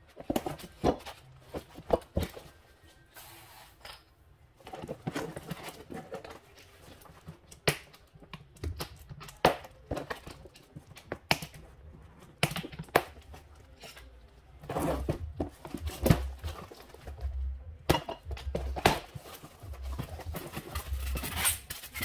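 Hand-work noises at a refrigerator's compressor compartment: irregular clicks, taps and knocks of pliers and metal parts, with dull thumps in the second half. Cardboard box flaps rustle near the end.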